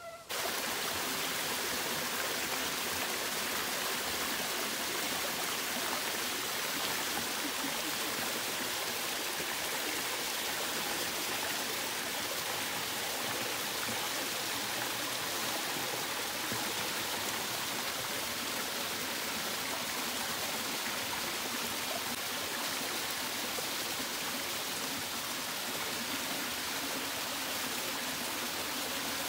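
Small waterfall cascading over rock: a steady rush of water that cuts in abruptly right at the start and holds at one level.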